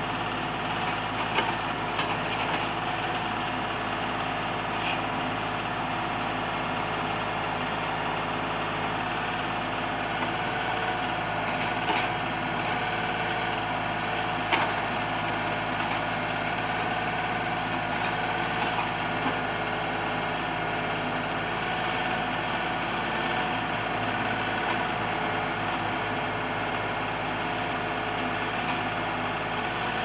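LS G3033H compact tractor's three-cylinder diesel engine running steadily at constant speed while it powers the LB1100 backhoe's hydraulics digging out a stump. A few short sharp knocks sound over it, about a second in and twice more around the middle.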